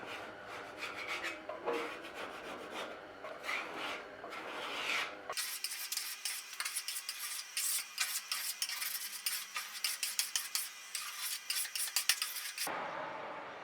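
Hand scraping and rubbing strokes across a steel desk top, lifting paint softened by chemical paint stripper. About five seconds in the strokes turn quicker and sharper.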